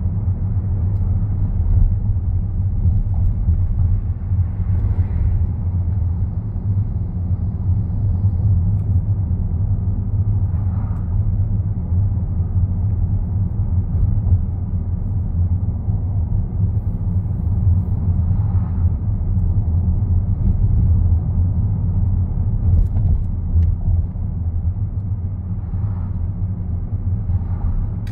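Steady low rumble of a car driving along a street, heard from inside the car: road and engine noise without change.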